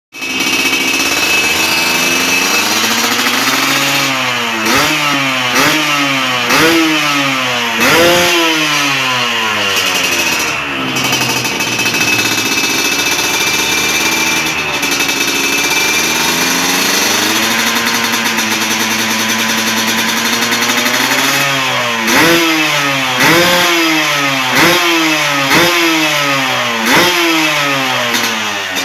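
Yamaha RX-King two-stroke single-cylinder engine revving on the stand through an aftermarket upswept expansion-chamber racing exhaust with a Ninja-style silencer. It is blipped sharply about five times, held at a steady speed for about ten seconds, then blipped about six times more.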